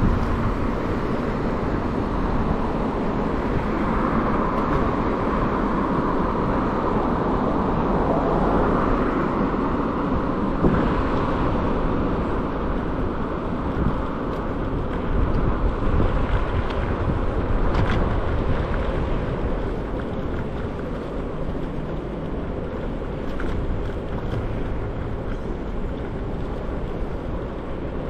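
Steady road noise from passing traffic and the scooter ride, with some wind on the microphone. It swells slightly in the first half and eases off a little later on.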